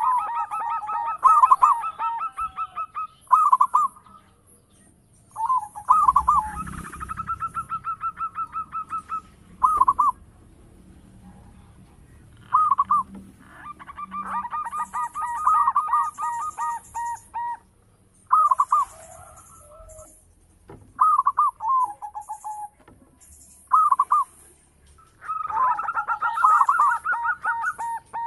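Zebra dove (perkutut) cooing: repeated phrases of rapid, evenly pulsed coos, some held for two to four seconds, others short two- or three-note calls, with brief pauses between them.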